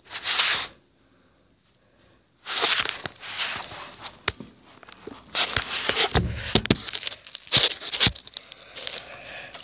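Phone microphone handling noise: rustling and rubbing as the phone is moved about and brushed against clothing, with scattered knocks and clicks. It cuts to dead silence for about a second and a half early on, then the rustling resumes.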